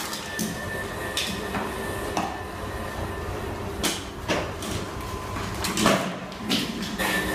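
Irregular mechanical clatter: about ten sharp clicks and knocks at uneven intervals over a steady low hum, with a faint high whine in the first couple of seconds.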